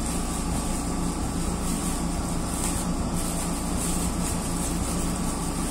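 Steady mechanical hum and rush of air from running equipment, with faint crinkling of a plastic bag being handled.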